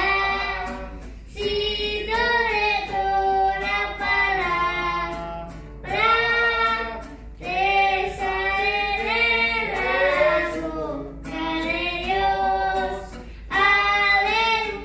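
A young girl sings a slow worship song into a microphone in phrases of long held notes, with an acoustic guitar strummed along.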